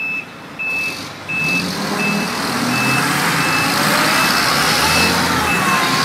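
A heavy truck's backup alarm beeps about once every 0.7 seconds over diesel engines working hard under load. The engines swell louder a second or so in as the stuck concrete pump truck is towed through mud, and the beeping fades under them.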